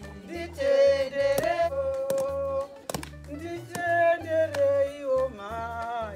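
Women singing together, with a steady low beat underneath and a few sharp hits.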